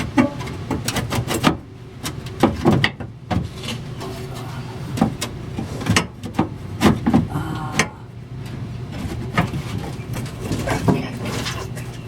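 Irregular knocks, clanks and scrapes as a Ford Ranger's fuel tank is lowered on a jack and worked under the truck, over a steady low hum.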